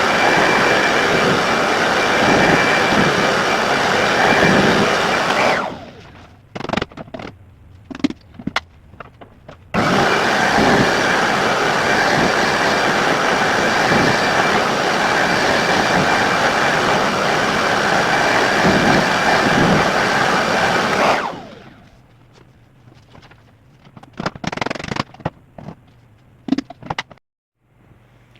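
Vacuum cleaner running with a steady whine. About five and a half seconds in it is switched off and spins down, followed by a few knocks and clatters. It comes back abruptly at about ten seconds and runs until about twenty-one seconds, then is switched off and spins down again, followed by more knocking and clatter.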